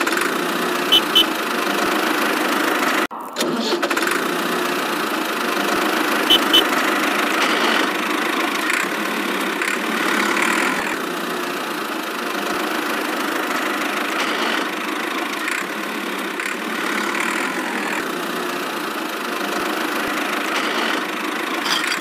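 Tractor engine running steadily as the miniature toy tractors drive with their loaded trolleys, with a brief break about three seconds in. A quick double beep sounds twice, about a second in and again about six seconds in.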